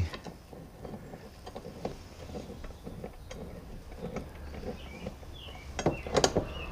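Scattered light knocks and clicks of metal mounting hardware being handled, with a cluster of louder knocks about six seconds in.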